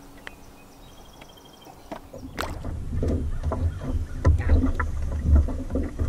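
Lake water slapping and lapping against the hull of a small aluminum fishing boat, with a low, uneven rumble of wind on the microphone. Quiet for the first two seconds, then the slapping and rumble come in and stay loud.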